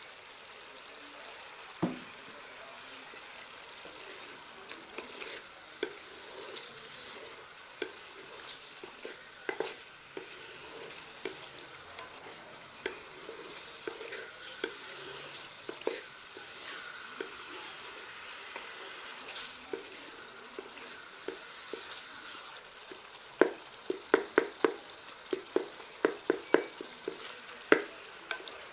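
Chicken and masala frying in oil in a pot, a steady sizzle, while a spoon stirs and scrapes against the pot with scattered clicks. Near the end, a quick run of louder spoon knocks against the pot.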